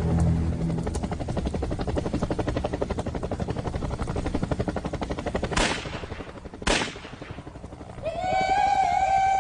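Battle sound effects from a war drama: a fast, steady rattle of gunfire over the pulse of a helicopter, then two loud bangs about a second apart. Near the end, music comes in with a high held tone.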